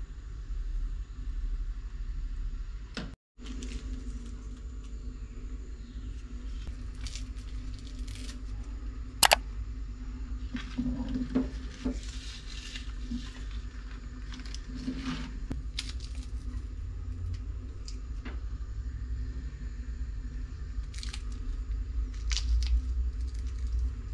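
Hands dropping curry leaves, sliced onions and spices onto fried chicken pieces in a clay pot and mixing them in: soft squishing and rustling with scattered sharp clicks, one louder knock about nine seconds in, over a steady low rumble.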